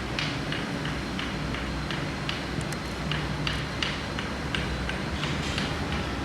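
A run of short, light clicks or taps, about three a second and slightly uneven, over a steady low hum.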